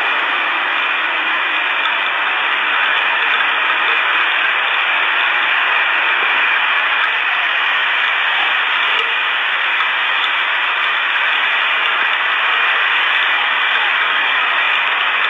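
Steady, loud hiss like radio static, unchanging throughout, with a faint steady tone running under it.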